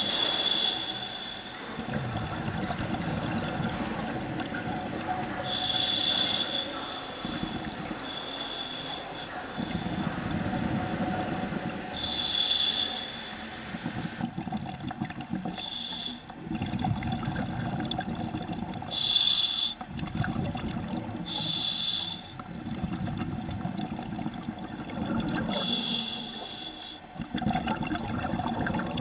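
Scuba diver breathing through a regulator underwater: a short hissing inhalation every few seconds, each followed by a longer low rush of exhaled bubbles.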